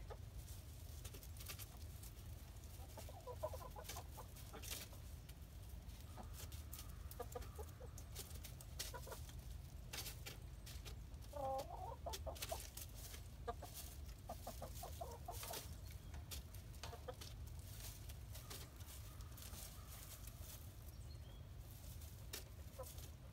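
Backyard hens, Buff Orpingtons among them, clucking softly in short scattered calls while pecking at a hanging cabbage. Sharp irregular clicks of their beaks striking the leaves come through over a low steady rumble.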